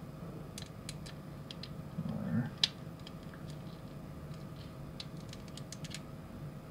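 Small, sharp plastic clicks and taps from a Choro-Q toy car's plastic chassis being pressed and worked into its body shell, a tight locating tooth being forced toward its groove. One sharper click comes a little after two and a half seconds.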